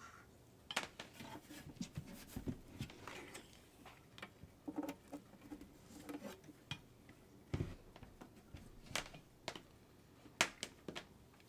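Irregular handling noises: scattered clicks, knocks and light rustling as a power cord is taken out of its packaging and plugged in.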